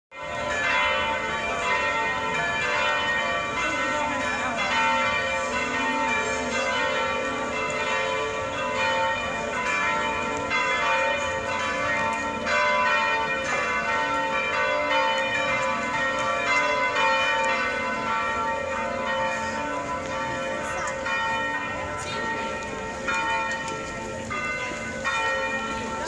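Church bells pealing, struck again and again so that their ringing tones overlap in a continuous clangour, easing off slightly near the end.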